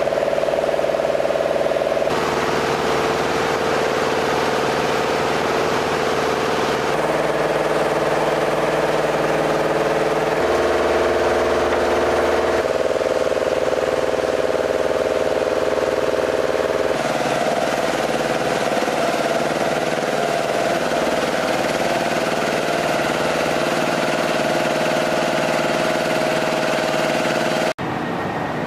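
Steady machine hum with several held tones, its pitch and mix changing abruptly several times.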